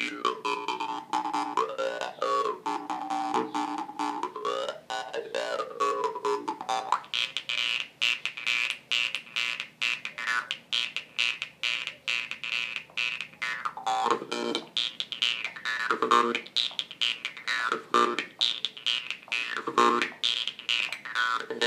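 Jew's harp played with rapid, even plucking, the overtones swept up and down by the player's mouth in wah-like glides for a techno-style sound. In the second half, heavier low accents come about every two seconds over the steady plucking.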